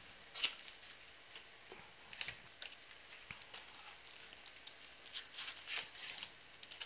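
A Panini football retail card box being opened by hand and its stack of foil-wrapped card packs slid out: scattered light cardboard taps and foil rustles, with a sharper tap about half a second in and busier rustling near the end.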